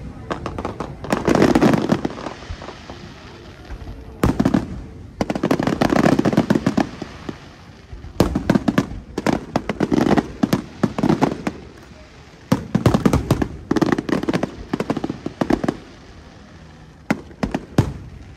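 Aerial fireworks shells bursting in volleys of rapid bangs and crackles, a new cluster every one to three seconds with short lulls between.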